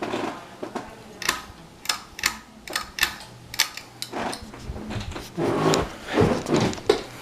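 Irregular sharp clicks and knocks, about a dozen, over a faint steady low hum, with brief muffled voices near the end.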